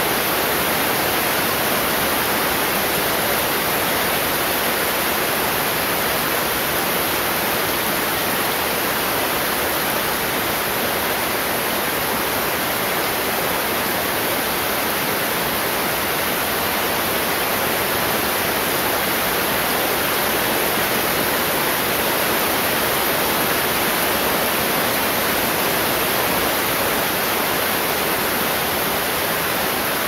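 Heavy rain falling steadily, an even unbroken hiss with no thunder.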